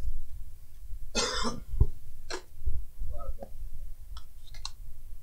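A man coughs, a loud burst a little over a second in, and clears his throat just before halfway. A few light clicks follow near the end.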